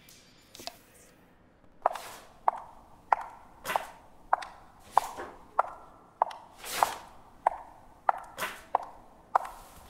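High-heeled shoes clicking on a hard floor in steady walking steps, about one and a half a second, starting about two seconds in.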